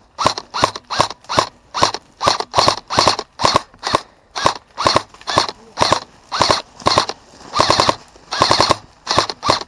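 Airsoft rifle firing rapid single shots, about three a second, each with a short mechanical whir. It breaks into a couple of short bursts near the end.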